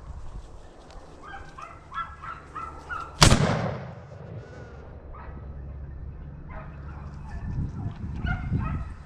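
A single loud rifle shot about three seconds in, fired at a wild boar, its report fading away over about a second. Before and after the shot, hunting dogs bay in short repeated calls.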